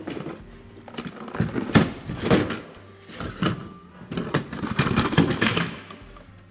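Cardboard parts boxes and paper packaging being handled and opened: rustling and scraping of cardboard in irregular bursts, several of them loud.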